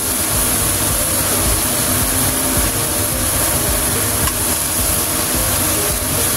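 Steady rushing noise with a low rumble from a running kitchen stove set-up, as minced beef and tomatoes cook in a wok over medium heat.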